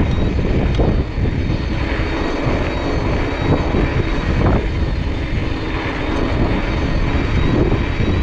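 Steady wind rush buffeting the microphone together with the rumble of tyres rolling downhill on an electric mountain bike.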